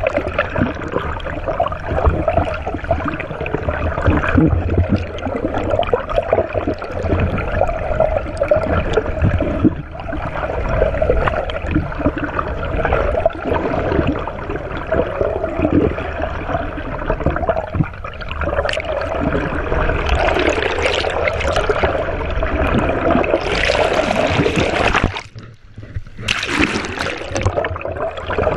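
Water sloshing and splashing against the side of a fishing boat over a continuous low rumble. The sound briefly drops away a few seconds before the end, then the splashing returns.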